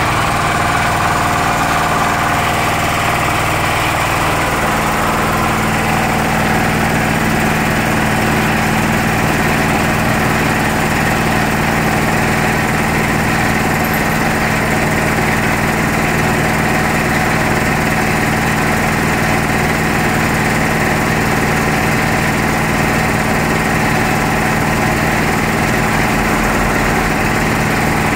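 Puma 3 HP piston air compressor, a twin-cylinder V pump belt-driven by a 2.2 kW three-phase electric motor, running steadily.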